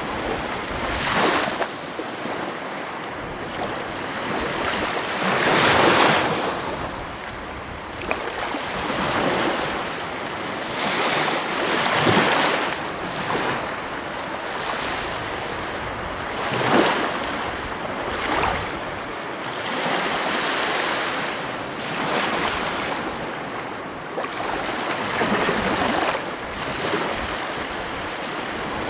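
Heavy ocean waves breaking on the shore: a continuous rushing wash with a louder surge every few seconds as each wave crashes, and some wind on the microphone.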